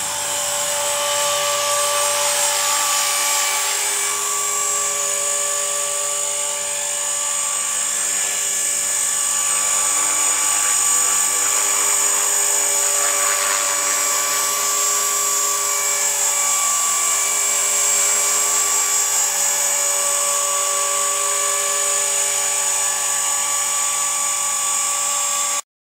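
EXI 450 SE electric RC helicopter hovering: a steady high-pitched whine from its motor and drivetrain, mixed with rotor hum, the pitch shifting a little at times. It cuts off suddenly near the end.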